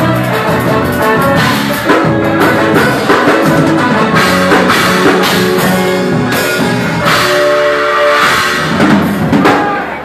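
Live band playing loudly: a drum kit with cymbal crashes drives the song, with guitar over it.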